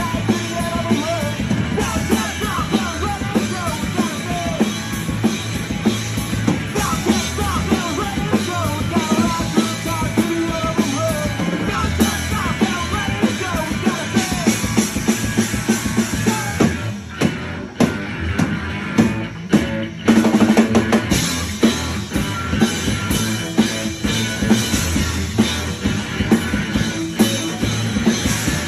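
A rock band playing live at a sound check, with the drum kit prominent and the kick drum steady under guitar. About two-thirds of the way through the playing thins briefly, then comes back in loud.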